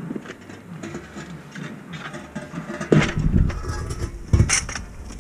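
Aluminium hand truck rattling on concrete as a cast-iron radiator section is tipped off it and set down, with scattered clatter and two loud metal knocks about three and four and a half seconds in, the second one ringing.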